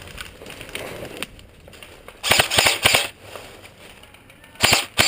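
Airsoft gun firing: a rapid burst of several sharp snapping shots a little over two seconds in, then two more short bursts near the end.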